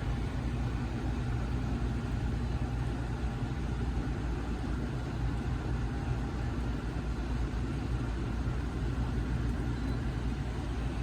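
Pasapair 8000 BTU portable air conditioner running: a steady hum of fan and compressor with a faint steady whine.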